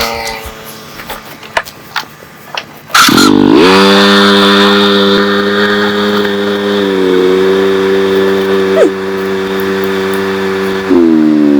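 A few sharp knocks, then about three seconds in an electric power tool's motor spins up and runs at a steady whine with a hissing edge. Its pitch dips slightly partway through and climbs again near the end.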